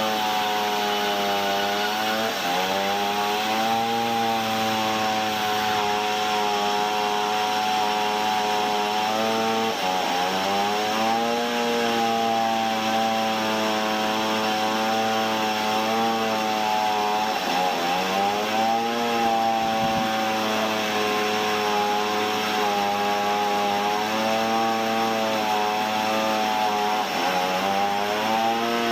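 Sawmill saw engine running steadily at a high, even pitch. About four times, roughly every seven to eight seconds, its pitch dips sharply and then climbs back.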